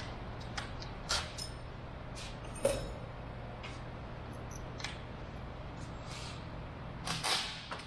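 Scattered light clicks and knocks of tools and parts being handled, over a steady low hum, with a small cluster of handling noises near the end.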